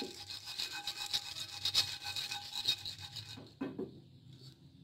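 Garlic cloves dry-roasting in a nonstick pan without oil: a dense, irregular crackling and scraping that dies down about three seconds in, followed by a single knock.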